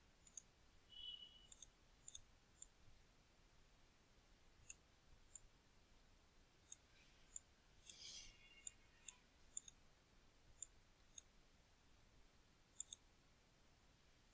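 Faint computer mouse clicks: about a dozen short, sharp clicks spaced irregularly over near-silent room tone, with a brief faint rustle about eight seconds in.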